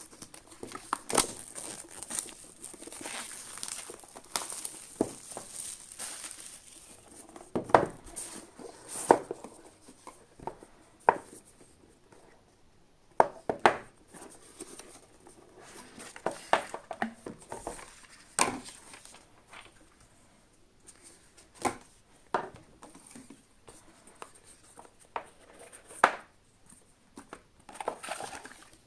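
Plastic wrap crinkling and tearing off a small cardboard box, then cardboard rustling, sliding and tapping as the box and its inner tray are opened. The sound is a string of irregular crackles with sharp knocks scattered through it.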